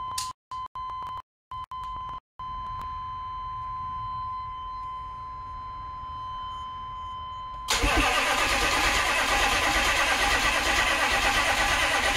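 A steady high beep, then about two-thirds in the 6.5L turbo diesel is suddenly cranked and started, running loudly with a fast pulsing beat. This is the first start after a fuel injection pump replacement, with the injector lines being bled of air.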